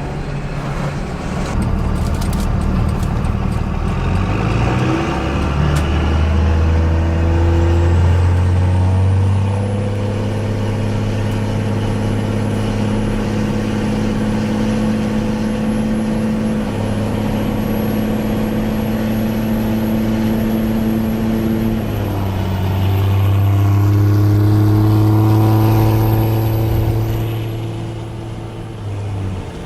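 A road vehicle's engine heard from on board as it drives. Its pitch climbs, shifts in steps as it goes through the gears, climbs again and eases off near the end, with a faint high whistle rising and falling along with it.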